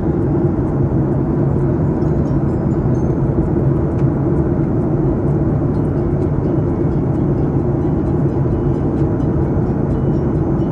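Steady drone of a passenger airliner heard from inside the cabin: engine and airflow noise with a constant low hum, unchanging throughout.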